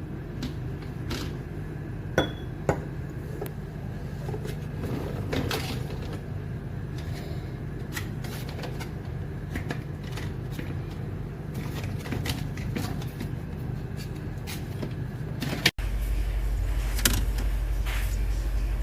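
A steady low mechanical hum with scattered light clicks and knocks, two of them sharper a couple of seconds in. About 16 seconds in, a sudden cut brings in a deeper, different hum.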